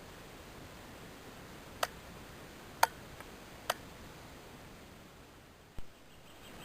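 Quiet outdoor ambience: a faint steady hiss, with three sharp clicks about a second apart in the middle and a dull bump near the end.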